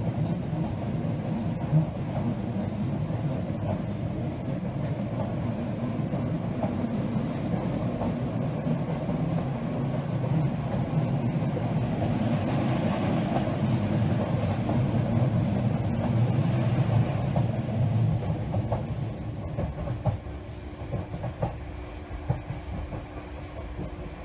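Running noise heard from inside a moving passenger train carriage: a steady low rumble of wheels on rail with scattered clicks. The rumble eases off about 20 seconds in, leaving a faint steady hum.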